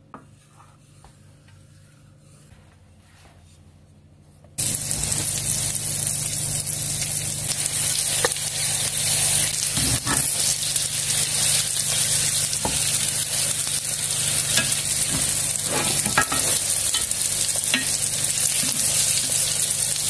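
Chinese chive pockets pan-frying in oil in an enamelled cast-iron pan: after about four and a half quiet seconds, loud steady sizzling starts abruptly and holds. A few light knocks come through the sizzle as the pockets are turned with a spatula and chopsticks.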